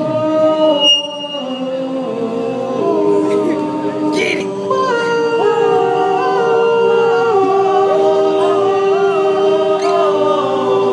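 A men's glee club singing in harmony: several voices hold chords together and move to new notes every second or so.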